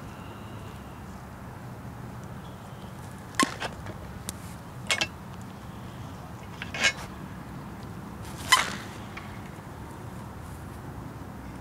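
Four sharp, clinking knocks about a second and a half apart, the last the loudest, over a steady low outdoor background.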